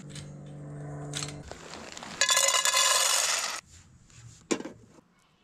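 Metal clinks and scrapes from a wire storage rack and a small cheap pot being handled over a hot plate. There is a steady hum for the first second and a half, and a louder rattling rush lasting over a second near the middle, with a single sharp click near the end.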